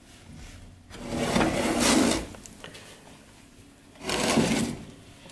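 Clay cooking pot dragged across the floor of a wood-fired oven, scraping twice: a longer, louder scrape about a second in and a shorter one near the end.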